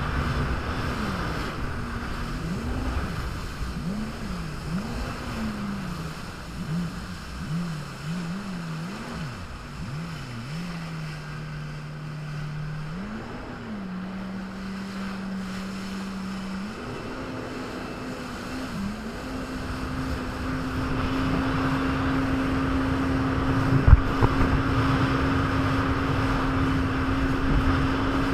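Jet ski engine with the throttle repeatedly opened and eased off for about ten seconds, the pitch swinging up and down, then dropping to a low steady run before opening up to a steady higher-speed run for the last third. Water rush and wind on the microphone throughout, with a single sharp knock near the end.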